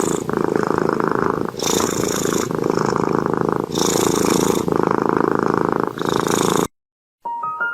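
Cat snoring: a continuous rough, pulsing rumble with a breathy hiss added on alternate breaths, one breath cycle about every two seconds. It cuts off suddenly near the end, and after a brief gap piano music starts.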